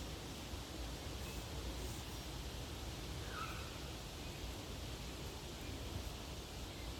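Steady outdoor background noise of wind and rustling, with a faint short chirp about three and a half seconds in.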